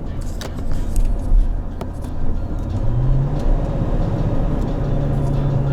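Road and engine noise inside the cab of a 2000 Ford Excursion with its V10 engine, towing a travel trailer: a steady low rumble, joined about three seconds in by a steady engine hum that rises a little in pitch.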